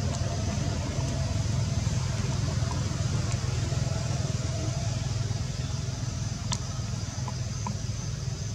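Steady low outdoor rumble with a thin, steady high-pitched hum above it, and a single sharp click about six and a half seconds in.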